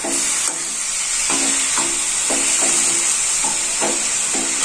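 Drumstick leaves, egg and boiled pulses sizzling in an aluminium kadai, with a steady hiss, while a spatula stirs and scrapes the pan in quick repeated strokes, about two or three a second.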